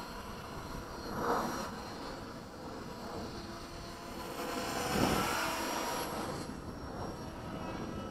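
Align T-Rex 500 radio-controlled helicopter in flight: a steady rotor and motor whine that swells louder about a second in and again, more strongly, around five seconds.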